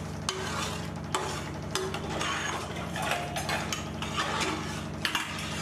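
Metal ladle stirring a pot of bubbling tomato biryani liquid, clinking and scraping against the metal pot in scattered sharp knocks, over a steady low hum.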